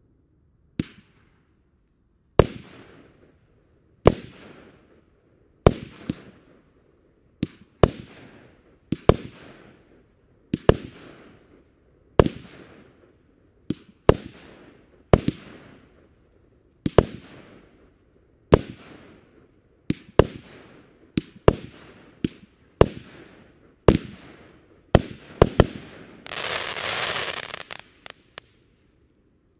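Lesli Showbrick Mixed 19, a 19-shot 25 mm consumer firework cake, firing shot after shot: a sharp bang about every one and a half seconds, each bang trailing off in a fading echo. Near the end several shots go off in quick succession, then a dense rushing crackle lasts about a second and a half.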